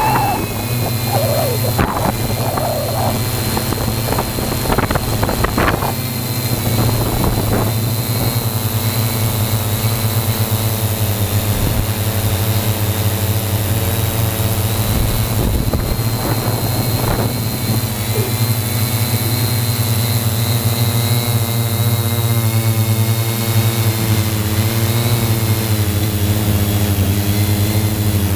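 3DR Y6 hexacopter's six electric motors and 15-inch propellers running steadily in flight, a loud low drone with a thin high whine above it. A few brief whooshes come in the first several seconds and again about halfway through.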